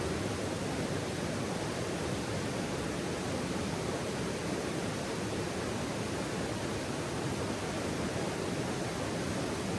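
Steady, even rushing of flowing water from a stream, with no distinct crackles or pops standing out.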